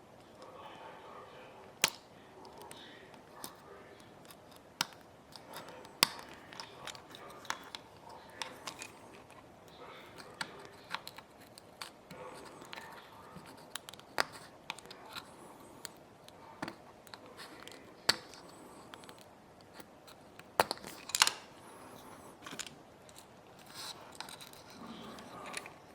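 Small hand tools clicking and tapping irregularly against a 6th-generation iPod nano's case and small parts during disassembly, with a few louder sharp snaps.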